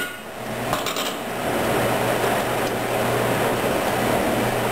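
Steady running drone of a Roper dishwasher, which is very noisy, with a low hum under it. A couple of light knocks about a second in, as a wooden spatula is lifted from a steel stockpot.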